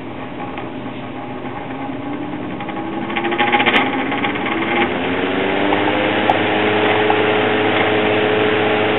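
Signal Cool Spot electric fan motor spinning up, its hum rising in pitch for a few seconds and then holding steady, with a rattling clatter about three to five seconds in. The owner takes the noise for bearing issues.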